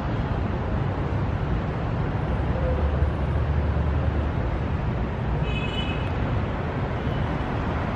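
Steady hum and low rumble of city traffic. A short high-pitched tone sounds briefly about five and a half seconds in.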